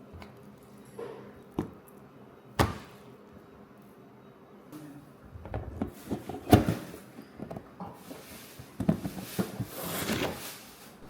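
Handling noises from kitchen work: a few sharp knocks and bumps, the loudest about two-thirds of the way through, then a stretch of rustling and scraping near the end.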